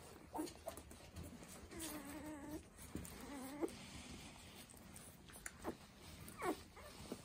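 Young puppies whining and squeaking: a short squeak near the start, two longer wavering whines around two to four seconds in, and a sharp falling squeak near the end.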